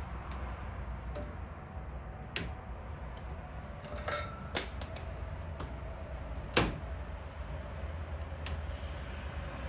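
Sharp plastic clicks and snaps from the Jeep Grand Cherokee's grille trim bezels and their clips being pried and worked loose, scattered and irregular, the two loudest about halfway through and two-thirds of the way in, over a low steady rumble.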